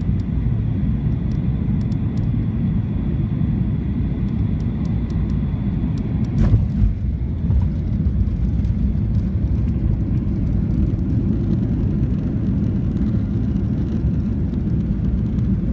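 Steady low rumble of an airliner's engines and airflow heard inside the cabin during landing, with one sharp knock about six and a half seconds in.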